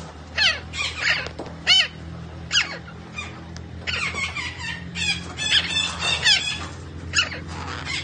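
A green parrot calling: short calls that each slide down in pitch, coming singly and in quick runs of several.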